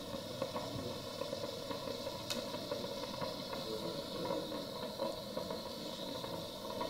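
Fingers softly patting and rubbing cream on a face, faint light taps over a steady background hum and hiss, with one sharp click a little past two seconds in.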